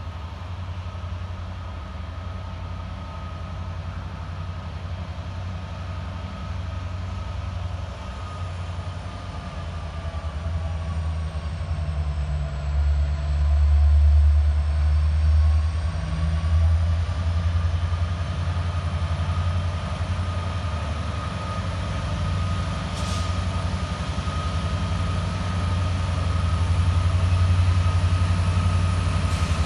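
Two CN EMD SD75I diesel-electric locomotives, with 16-cylinder two-stroke EMD 710 engines, running at low power as the train approaches slowly: a steady deep rumble with a faint high whine over it, swelling to its loudest about halfway through.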